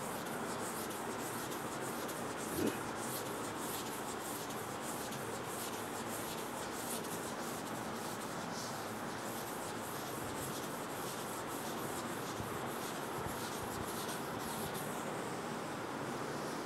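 Chalkboard being wiped clean with a hand-held duster: a continuous run of rubbing strokes across the board, with one brief knock about two and a half seconds in.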